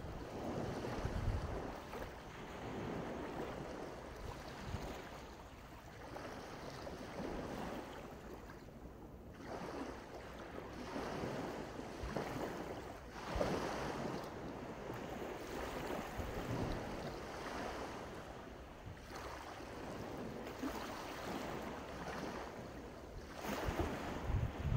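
Sea waves washing onto a beach, the surf swelling and easing every few seconds, with wind rumbling on the microphone now and then.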